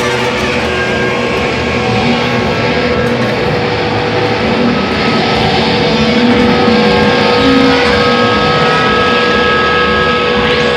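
Live band playing a loud, noisy, distorted drone. A low note is held throughout, and higher held tones come in clearly about three-quarters of the way through.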